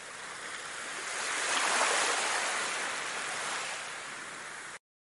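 Ocean surf sound: the hiss of a wave that swells to a peak about two seconds in, then recedes and cuts off abruptly near the end.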